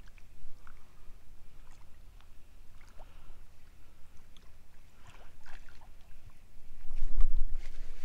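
Small-craft sounds on the water: a paddleboard or kayak rocking, with scattered small splashes and knocks against the board over a low rumble, and one louder thump about seven seconds in.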